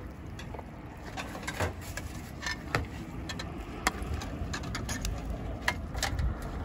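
A metal skimmer scraping and tapping against a large cooking cauldron (kazan) and plates as food is dished out, giving scattered sharp clicks, over a steady low rumble.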